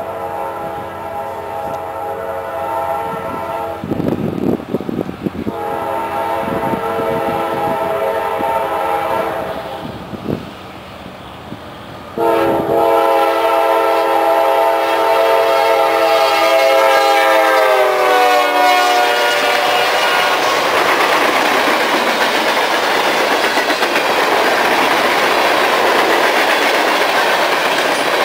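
A Nathan K-5LAR24 five-chime air horn on a CSX freight locomotive sounds long blasts as the train approaches. The loudest blast comes from about twelve seconds in and drops in pitch as the locomotive passes close by. Then the freight cars roll past with steady wheel clatter.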